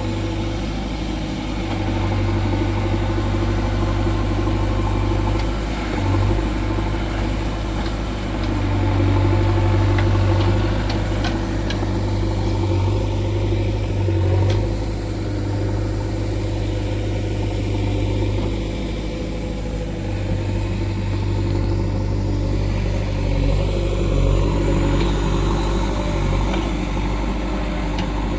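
JCB 3DX backhoe loader's diesel engine running steadily, its pitch and level rising and falling a few times as the machine works.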